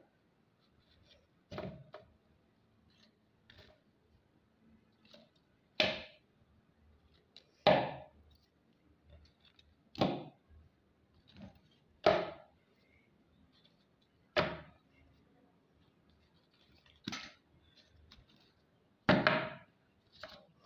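Crisp deep-fried samosas and spring rolls being set down one by one on a paper-towel-lined plate: a short tap with a rustle of paper about every two seconds, eight in all.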